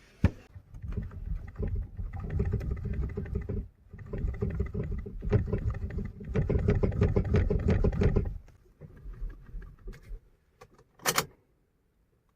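2012-2017 Toyota Camry steering column making a rubbing, knocking noise as the steering wheel is turned, in two spells with a short break about four seconds in and a stop after about eight seconds. This is the steering noise that points to a faulty electric power steering motor column. A sharp click comes near the start and another near the end.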